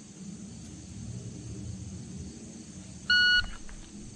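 A shot timer's start beep, one short steady electronic tone lasting about a third of a second, comes about three seconds in over a quiet low rumble; it is the signal for the shooter to draw and fire.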